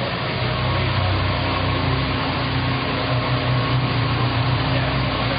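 Steady mechanical drone of a running motor, a continuous low hum under an even noise that does not change.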